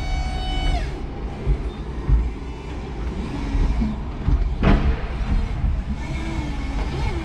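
Electric forklift truck working under a load of OSB: a high electric motor whine falls slightly and stops about a second in, over a steady low rumble of the truck moving. There is one sharp clunk near the middle.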